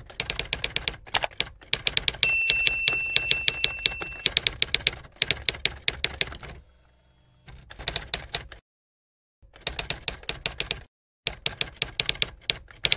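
Typewriter sound effect: rapid runs of keystroke clacks, broken by short pauses, with a typewriter bell ding ringing for about two seconds near the start.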